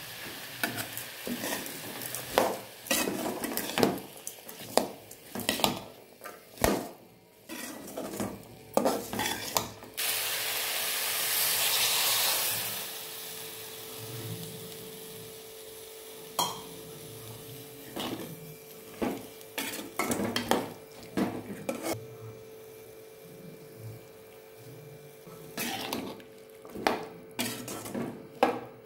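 A metal spoon scraping and clinking against a metal kadai while stirring chopped carrots and beans. About ten seconds in, water goes into the hot pan with a loud hiss and sizzle that settles to a quieter sizzle under more stirring clicks.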